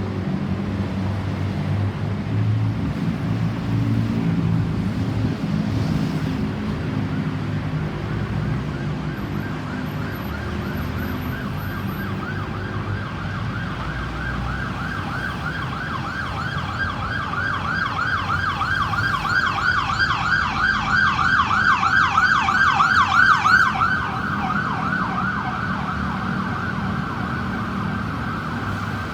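Emergency vehicle siren, the ambulance kind, approaching: a fast up-and-down yelp that grows louder over several seconds, then switches abruptly to a steadier tone about two-thirds of the way through. A low vehicle engine hum fills the first part before the siren comes in.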